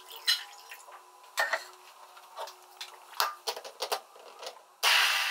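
Scattered clinks and knocks of a glass jug and a stick hand blender against a steel pot. Near the end a hand blender switches on with a loud whir, mixing a pot of fruit purée.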